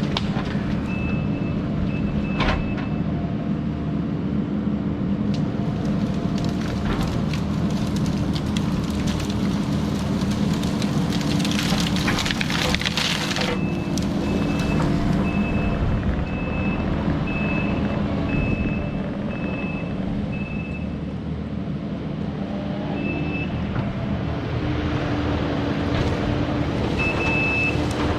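Diesel engine of heavy land-clearing machinery running steadily under work, with a backup alarm beeping at an even pace through a stretch after the middle and again near the end. A few seconds before the mid-point, a loud crackling, rushing noise rises over the engine and cuts off.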